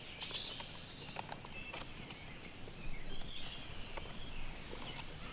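Quiet outdoor ambience with faint, scattered high bird chirps and a few light clicks.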